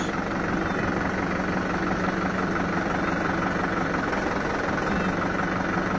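Tractor engine running steadily at a low, even hum while it holds its raised loader boom.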